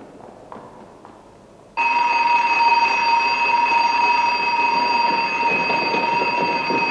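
Electric station alarm starting suddenly about two seconds in and sounding continuously in one shrill, unbroken tone. Faint footfalls of people running come before it and under it.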